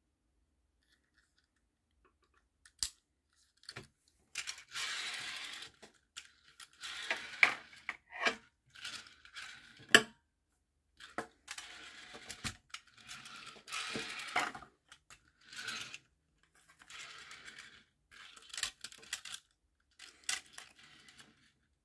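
Majorette die-cast Volkswagen T1 minibus toy rolled on its small wheels across a hard glossy tabletop: several runs of rolling noise, each a second or two long, between sharp clicks and knocks as the toy is set down and handled. The loudest click comes about ten seconds in.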